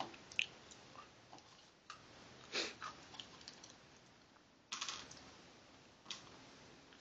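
A few faint, scattered clicks and light crunches of small snack crackers and small cups being handled on a tabletop, with near quiet between them.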